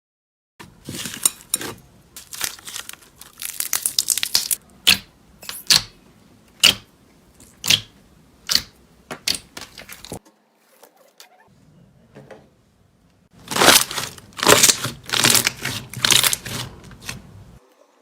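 Slime being squished and poked by hand: a run of sticky crackles and sharp pops. It stops for about a second midway, then starts again.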